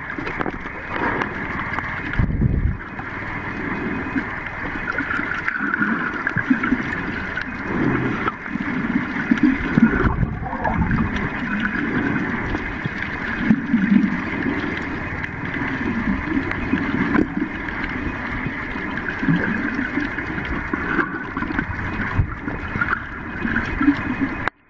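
Muffled moving water heard from below the surface: a steady rush with gurgling and irregular swells of low rumble as swimmers stir the water.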